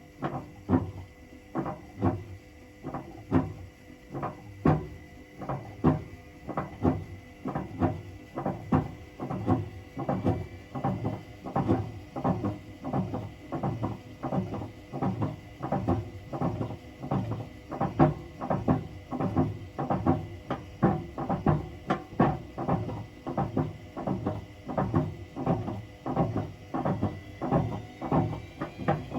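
Hotpoint BHWMXL145 washing machine turning its drum slowly in the early spin stage, with a steady, even knocking over a faint whine: the drum clattering on its snapped drum spider.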